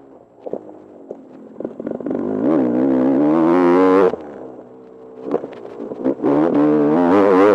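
Sherco enduro dirt bike engine heard from on the bike: a few short throttle blips, then two hard pulls with a wavering, rising note, each cut off sharply as the throttle is shut, about four seconds in and again at the end.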